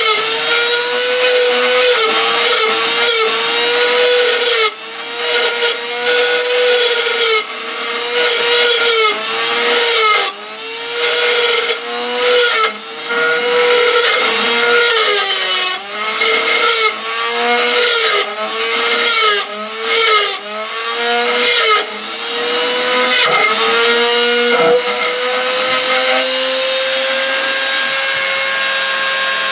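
Electric drill motor running hard, its pitch sagging and recovering over and over as it is loaded, then running steady for the last few seconds.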